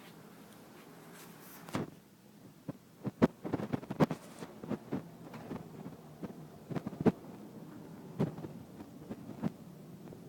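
Irregular soft thumps and knocks, coming in quick clusters at times, starting about two seconds in.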